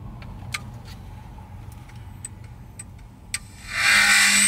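Small sharp plastic clicks and ticks from handling a DJI FPV drone, then near the end a loud rushing burst of noise lasting about a second.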